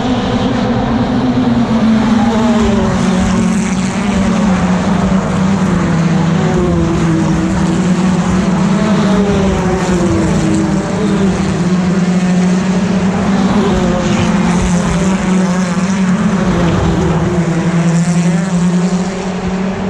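British Touring Car Championship race cars running past at racing speed, a continuous loud engine noise whose pitches rise and fall as the cars go by.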